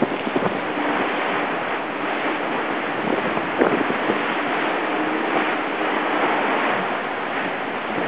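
Rushing water and spray along the hull of a Class 40 racing yacht sailing fast, with spray sheeting over the deck and wind buffeting the microphone. A steady rush with a few brief louder splashes.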